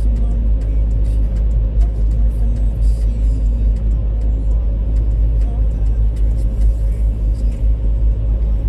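Car driving steadily on a paved road, heard from inside the cabin: a constant deep rumble of engine and tyres with road hiss.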